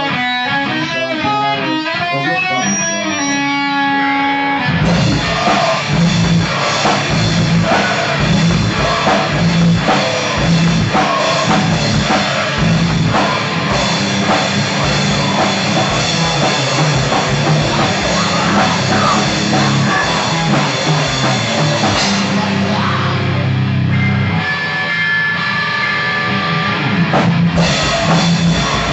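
Rock music with drum kit and guitar. A sparse melodic intro of quick changing notes runs for the first four or five seconds, then the full band comes in with a steady beat. The drums and bass drop out briefly a few seconds before the end, then return.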